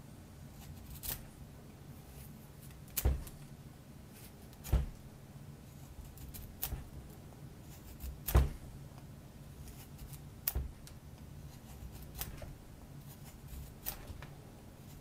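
A knife blade shaving soft pine knife scales in short, separate cuts, about eight strokes spaced one to two seconds apart, over a low steady hum.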